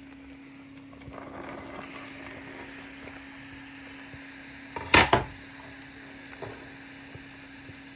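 Cooking pot and utensils: a faint sizzle and stirring under a steady hum, then a sharp double knock of a utensil or lid against the pot about five seconds in, followed by a lighter click.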